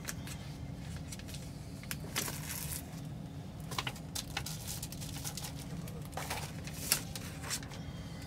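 Papers and a plastic document sleeve being handled and leafed through: scattered rustles and small clicks, the sharpest about seven seconds in, over a steady low hum.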